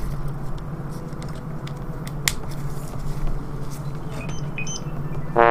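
Faint clicks and handling noise as a charging cable is plugged into a Samsung Galaxy S7 Edge phone, over a steady low hum. A loud buzzing tone starts right at the end.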